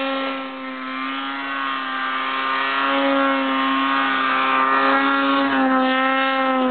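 Snowmobile engine running at high, steady revs while the sled ploughs through deep powder snow, its pitch rising and dipping slightly.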